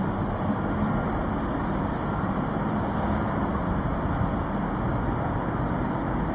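A steady, even rumbling noise with no distinct events, heaviest in the low range.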